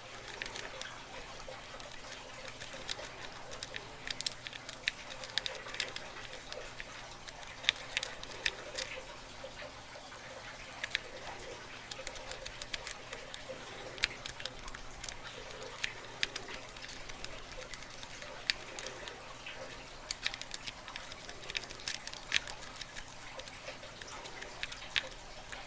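A Kwikset lock being picked: irregular small clicks and scrapes of the pick working the pins, some in quick little clusters.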